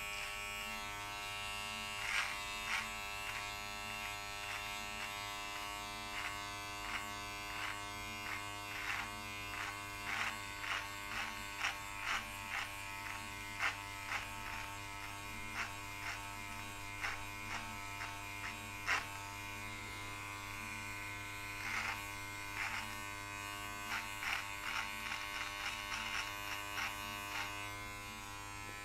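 Electric body-hair trimmer buzzing steadily while it is run through a thick beard, with irregular sharp crackles, about one or two a second, as the blade cuts through the hair.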